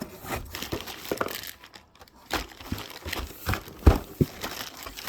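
Plastic packaging crinkling and rustling in irregular bursts as it is handled, with a heavier knock a little before the end.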